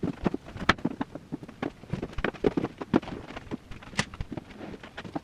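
Shoes being set down and shuffled onto the tiers of a spinning shoe rack: a busy run of irregular light knocks and taps, several a second, with a sharper click about four seconds in.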